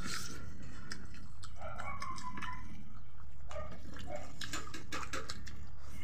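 Close-up eating sounds: wet chewing and lip smacking, with soft squelches and sharp little clicks as rice and curry are mixed and picked up by hand, over a steady low hum.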